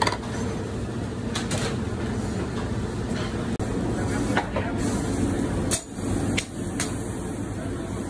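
Steady rumble of a commercial kitchen charbroiler and its exhaust hood, with about five sharp metallic knocks and clanks as utensils and the steak meet the grill grates.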